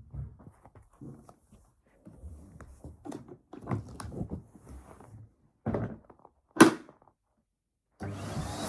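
Irregular thuds and knocks of handling, the sharpest about two-thirds of the way through, with quiet gaps between them; near the end a Henry canister vacuum cleaner comes on abruptly and runs with a steady whooshing drone.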